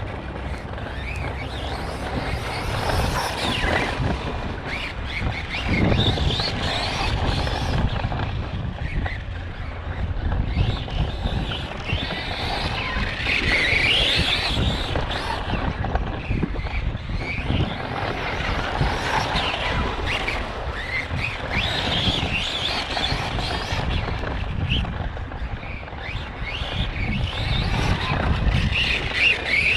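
Arrma Kraton 4S RC truck's brushless motor and drivetrain whining, rising and falling in pitch as it speeds up and slows, over a low rumble of tyres on the ground. The owner suspects an unhappy bearing or gear in the drivetrain.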